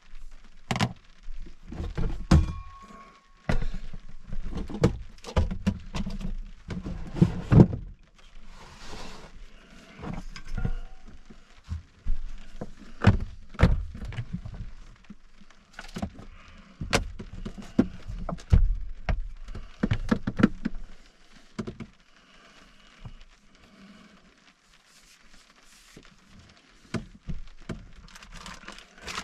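Irregular knocks, thunks and rustling of gear and food packages being rummaged through and set down in the small enclosed space under a pickup's camper shell.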